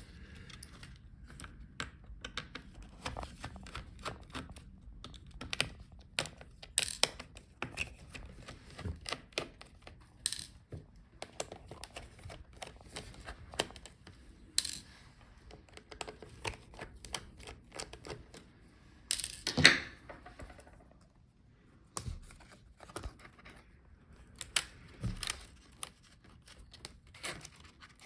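Scattered small clicks, taps and scrapes of hands and tools working inside an opened laptop, handling its cables, screws and internal parts during disassembly, with the loudest scrape about two-thirds of the way through.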